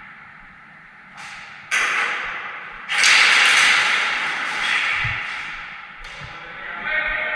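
Airsoft gun shots: a series of sharp cracks, the loudest about three seconds in, each trailing off in a long echo.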